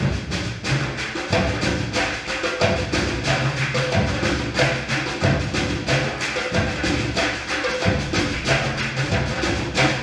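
Afro-Brazilian percussion ensemble playing a rhythm together. Pitched bass drums play a repeating pattern under fast, dense strokes on higher drums.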